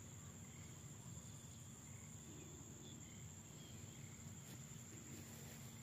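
Faint, steady high-pitched trilling of crickets, with a low steady hum underneath.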